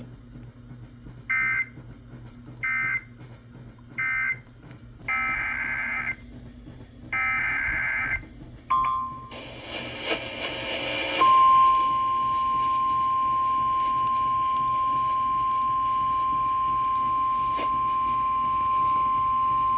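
Emergency Alert System broadcast on NOAA Weather Radio: three short end-of-message data bursts about a second and a half apart, then longer data bursts of the header for a new warning, then, about eleven seconds in, the steady 1050 Hz weather-radio warning alarm tone held for about nine seconds.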